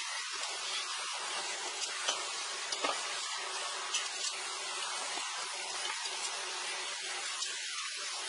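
A steady hiss, with faint scattered clicks and snaps as rubber bands are pulled off a wooden stave pot.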